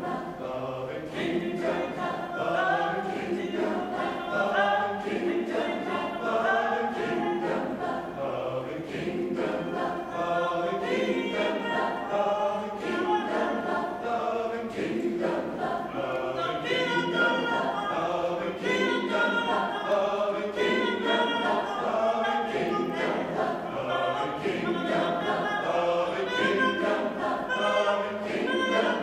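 Mixed choir of men's and women's voices singing a cappella, a lively, continuous part-song.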